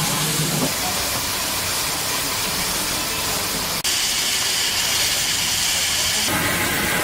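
Steady hiss of escaping steam from the Darjeeling toy train's steam locomotive, broken off sharply a little under four seconds in.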